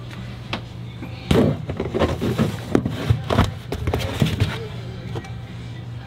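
A clear plastic cat litter box being handled and pushed into a cabinet: a run of knocks and scrapes of plastic against the cabinet, starting about a second in and stopping a couple of seconds before the end.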